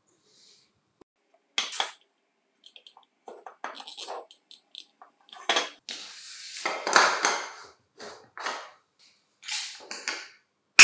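Plastic parts of an electric pencil sharpener's mechanism being handled, set down on a wooden workbench and fitted together: scattered clicks, light knocks and rubbing, starting about a second and a half in.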